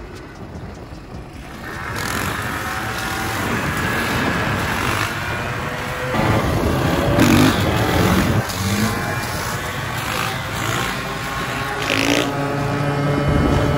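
Dirt bike engine running close by and revving up and down, growing louder about two seconds in, with stronger throttle surges in the middle and near the end.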